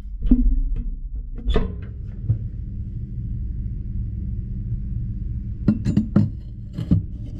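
Forged steel chopper blade being set into a heat-treating kiln for hardening: a few sharp clinks and knocks of steel against the ceramic hearth plate, over a steady low hum. The loudest knock comes about a second and a half in, and a quick cluster of clinks near the end comes as the blade is stood upright.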